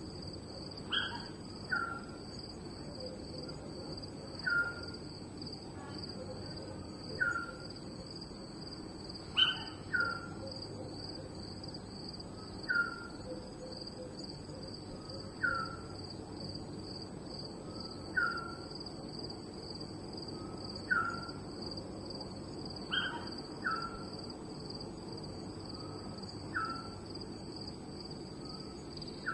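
Night ambience: crickets trilling steadily and high, with a short falling chirp-like call repeated about every two and a half to three seconds, now and then doubled, over a low steady background noise.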